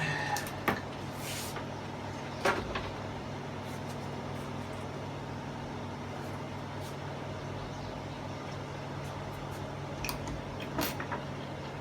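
A steady low hum with a few short clicks and knocks: one just after the start, one about two and a half seconds in, and a couple near the end.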